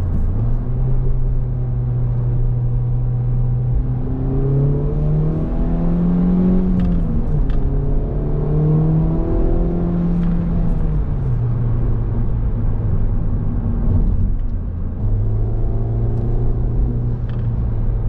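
Honda Civic Type R (FL5)'s turbocharged 2.0-litre four-cylinder engine heard from inside the cabin, breathing through a Sprint drop-in air filter: steady at first, revs rising about four seconds in, dipping briefly at a gear change, climbing again, then falling back and settling lower.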